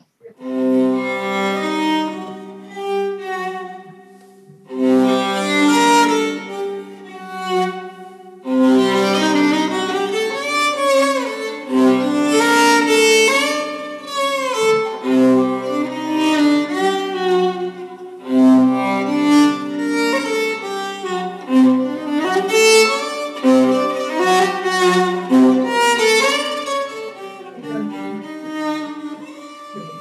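Solo violin playing a melody, with notes that slide in pitch; it thins out briefly about four seconds in and again near eight seconds, then carries on.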